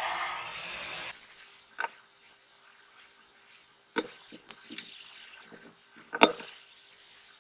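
A steady hiss for about the first second, then a tool scraping and clicking against the cracked rear glass of a Samsung Galaxy Note 10+ as it is pried off. There are sharp clicks about four seconds in and a louder one near six seconds.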